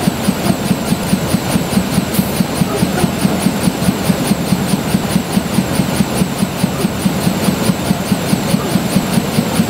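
Diesel locomotive engine idling steadily, with an even beat of about four to five pulses a second, while the train stands still.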